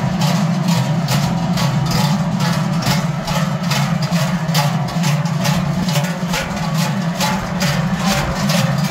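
Many large Swiss Treicheln (big hammered cowbells) swung from shoulder yokes by a marching group, clanging together in a steady rhythm of about three strokes a second.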